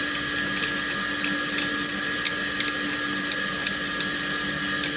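Steady electrical hum with a few high, thin tones over it, and scattered short, sharp light clicks at irregular intervals, roughly three a second.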